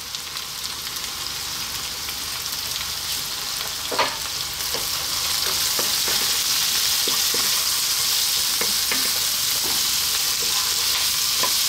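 Mixed vegetables sizzling in hot oil in a deep nonstick pan. The sizzle grows louder about five seconds in as a wooden spatula stirs them, with light scrapes and taps of the spatula against the pan.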